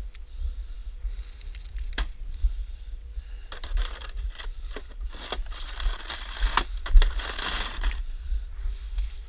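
Snow shovel scraping and pushing through snow in several passes, with a few sharp knocks of the blade, the loudest about seven seconds in. Wind buffets the microphone with a steady low rumble underneath.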